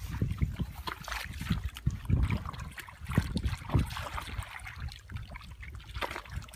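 Hands sloshing and splashing through shallow muddy water while groping in the mud, in irregular, uneven splashes.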